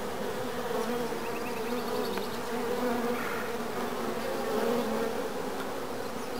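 Many honey bees buzzing around an open hive: a continuous, steady hum whose level swells and dips slightly.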